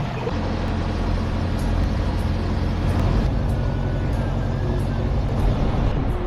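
An engine running steadily with a low rumble, with no change in speed.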